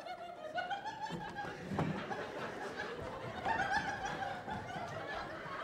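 People laughing and chuckling, with a single thump about two seconds in.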